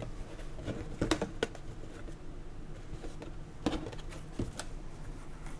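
A few light, scattered clicks and taps over a faint steady room hum.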